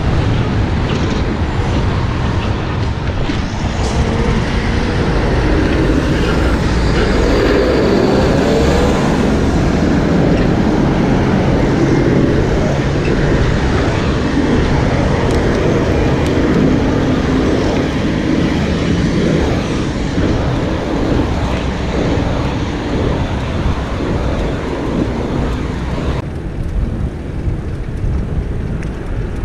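Busy road traffic heard from a bicycle riding right alongside it: cars and heavy trucks running and driving past, over wind rushing on the microphone. The traffic din thins out near the end.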